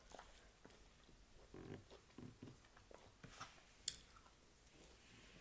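Faint eating sounds: a fork picking through salad in a plastic takeout container and quiet chewing, with one sharp click about four seconds in.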